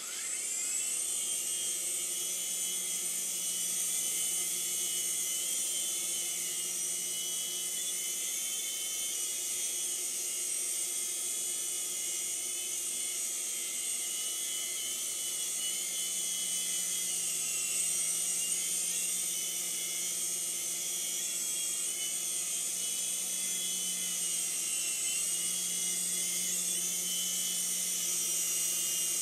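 A small remote-control helicopter's electric motor and rotor run with a steady high-pitched whine. It spins up at the very start, and its pitch dips and recovers a few times.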